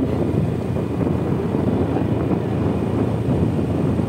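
Steady rush of wind and road noise from a moving motorcycle, with no distinct engine tone standing out.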